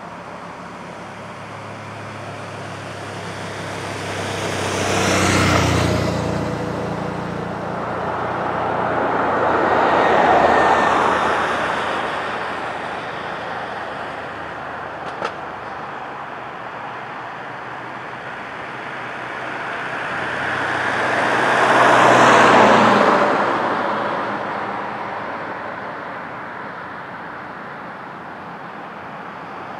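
Cars passing on the road one by one: three pass-bys, each a swell of tyre and engine noise that rises and fades, about five, ten and twenty-two seconds in, the last the loudest and the first with a low engine hum. A single short click about fifteen seconds in.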